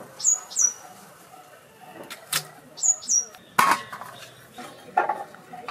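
Potato pieces cut on a curved boti blade and dropped into a steel bowl: a few separate sharp clinks and knocks. A small bird chirps in two short pairs of high, falling notes.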